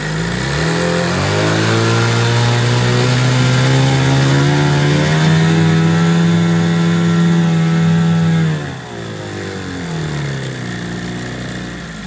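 1988 Evinrude 15 hp two-stroke twin outboard running in a test tank. It is throttled up about half a second in and held at higher revs, then throttled back down to idle after about eight and a half seconds.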